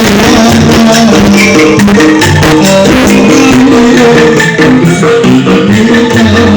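Live campursari music with shaken bamboo angklung rattling over a steady percussion beat and held melodic notes, played loud through a PA sound system.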